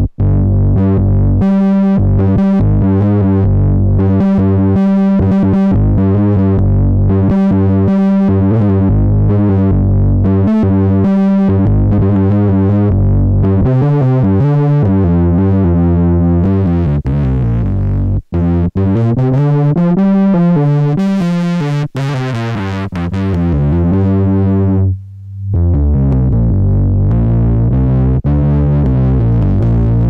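Behringer Poly D analog synthesizer playing a distorted monophonic patch: a low line of held and repeated notes. A little past the middle the tone sweeps up and down for a few seconds, then the sound drops out for a moment and comes back.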